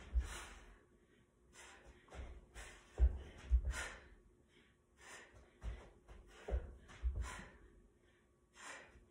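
A person breathing hard through burpees: repeated sharp breaths, with dull thuds as hands and bare feet land on a rug-covered floor.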